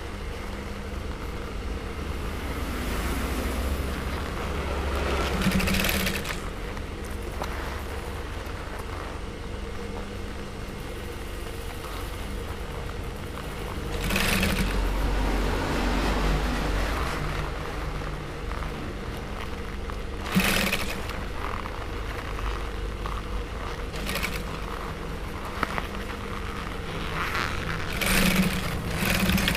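Industrial sewing machine with its table-mounted motor humming steadily while stitching a leather jacket, with a few brief louder spells spaced several seconds apart.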